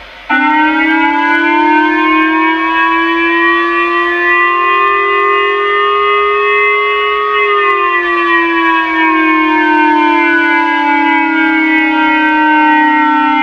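Emergency alert siren tone: a chord of several tones that rises slowly in pitch for about seven seconds, then slowly falls, like a civil-defense siren wail.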